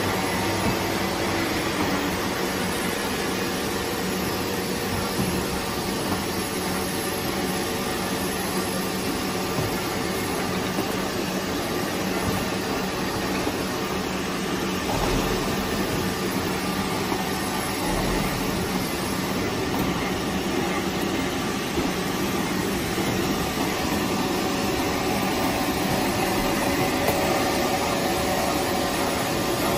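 Semi-automatic corrugated-carton folder-gluer running steadily, its motors, rollers and conveyor belts making an even mechanical din with a faint steady hum as cardboard sheets are fed through.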